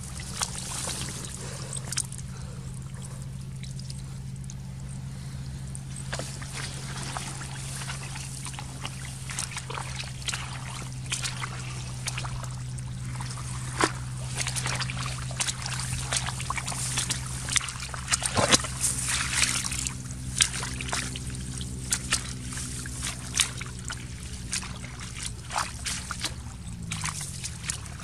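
Splashing and sloshing in shallow muddy water, with many short splashes and knocks as fish are grabbed by hand and dropped into a plastic bucket. A steady low engine hum runs underneath and drops in pitch near the end.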